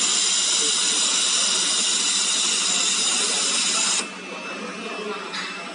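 Steady hiss of gas blowing from the nozzle at a fiber laser welding head, cutting off suddenly about four seconds in and leaving quieter machine noise.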